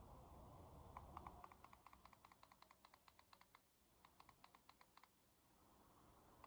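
Faint rapid clicking, about five clicks a second, in two runs with a short pause between.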